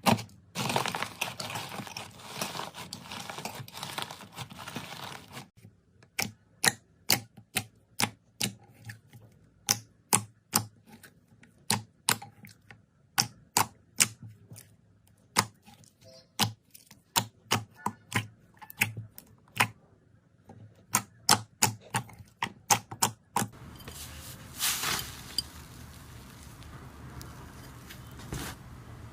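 Slime being worked by hand, giving sharp clicks and pops at about two to three a second. It starts with dense crackling and turns to a steadier crackly hiss near the end.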